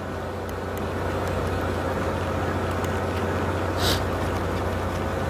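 Steady low hum of a fishing boat's engine running, with an even hiss over it and a short hiss about four seconds in.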